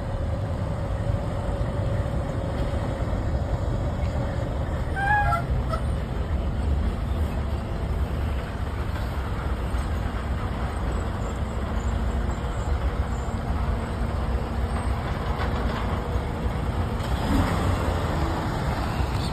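Diesel semi-truck pulling a car-hauler trailer, its engine running with a steady low rumble as it drives slowly up and past, swelling near the end as it comes close. A few short squeaky chirps sound about five seconds in.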